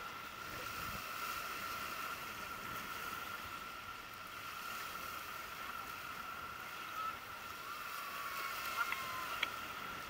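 Pebble-beach ambience: small waves washing on the stones under a steady hiss, with a constant high-pitched tone running through it and distant voices of bathers. A few short sharp sounds come near the end.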